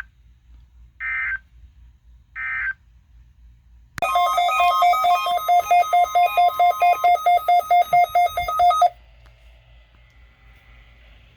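Short two-tone data bursts of a NOAA Weather Radio SAME end-of-message signal, the last two about a second apart. They are followed by about five seconds of loud electronic beeping pulsing about four times a second, with shifting tones over it, which stops suddenly and leaves faint hiss.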